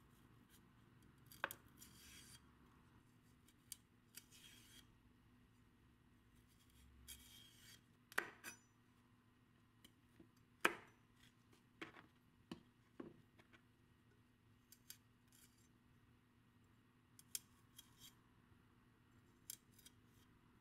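Quiet kitchen prep sounds: scattered light clicks and knocks, a few sharper taps, and several short rustles.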